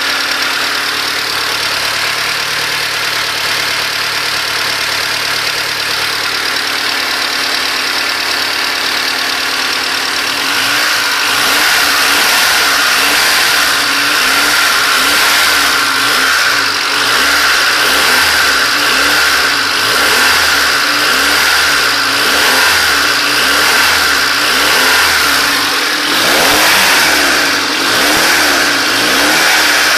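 Engine of a Honda Civic EG4 idling steadily, then revved in repeated short blips about every second and a half from about ten seconds in. The owner is asking whether a clacking noise in it is something wrong.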